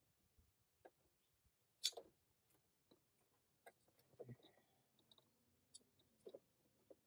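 Near silence with faint, scattered clicks and light taps from thick welding cable and a cable cutter being handled.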